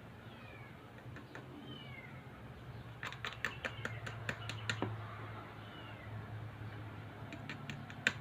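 Light, sharp clicks and taps in quick runs, from handling a small plastic container of glitter or sequins, with a few faint, short, high falling calls like a cat mewing, over a low steady hum.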